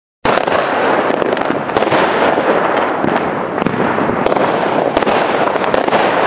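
Fireworks crackling: a dense, steady crackle with many sharp pops scattered through it, starting suddenly just after the start.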